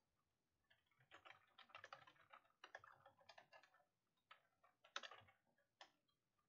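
Faint computer keyboard typing: a quick run of key clicks lasting about three seconds, then a few scattered keystrokes near the end.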